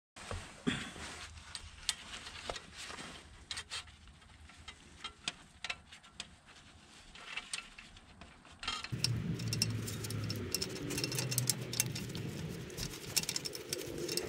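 Small metallic clicks and clinks of clutch pressure-plate bolts being handled and threaded in by hand. About nine seconds in the clicking becomes busier and a steady low drone joins it.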